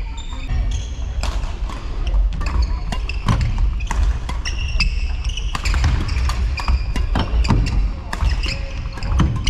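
Badminton rally in a sports hall: rackets strike the shuttlecock with sharp hits every second or so, among short high squeaks of court shoes on the floor and the low rumble of the hall.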